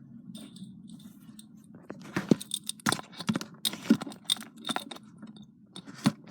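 Handling noises: a run of irregular sharp clicks, taps and rustles starting about two seconds in, over a low steady hum.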